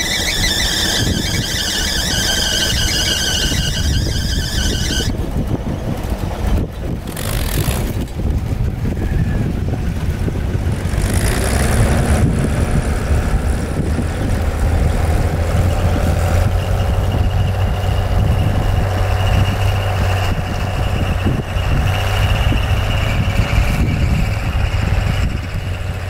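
1968 Bombardier tracked snow plow moving off: a high, loud squeal from the machine for about the first five seconds, then cutting off, followed by a steady low rumble as it drives away.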